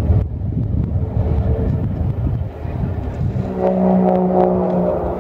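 Single-engine aerobatic propeller plane, a Zivko Edge 540, at full power in a vertical climb, heard from a distance: its steady engine drone comes in strongly about three and a half seconds in. Before that, wind rumbles on the microphone.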